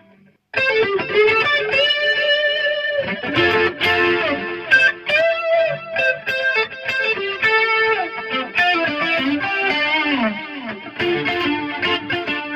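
Electric guitar lead from a Fender American Special, played through a Tube Driver overdrive pedal with chorus into a Hiwatt amp: sustained, overdriven single notes with string bends, starting about half a second in.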